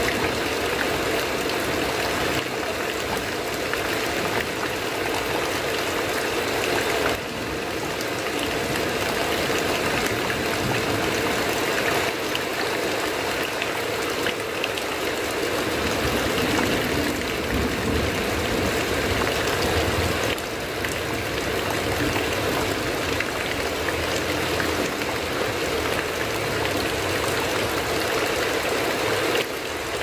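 Heavy rain falling steadily on dense leaves: a continuous, even hiss of pattering drops that briefly dips in level twice.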